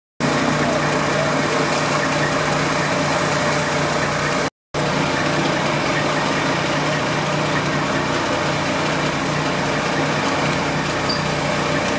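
Fire engine running steadily with a low hum. The sound drops out for a split second twice, near the start and about four and a half seconds in.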